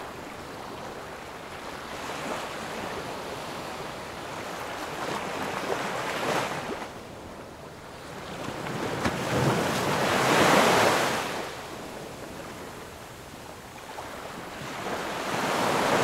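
Small waves washing up onto a sandy beach, the surf swelling and falling back every few seconds, the biggest wash about ten seconds in.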